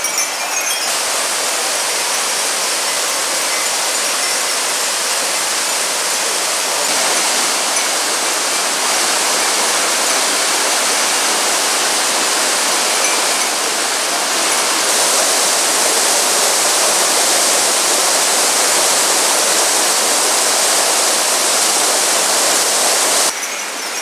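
Shokei-daru waterfall pouring into its plunge pool: a steady rush of falling water, with no pitch and no rhythm.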